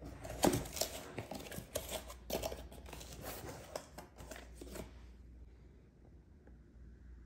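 Plastic shrink wrap crinkling and rustling in irregular bursts as hands grip and work at it on a cardboard box. It stops about five seconds in.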